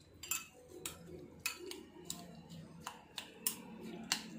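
A metal spoon clinking against a drinking glass as crushed watermelon and mint are stirred and pressed in it: soft, irregular clicks, about eight of them.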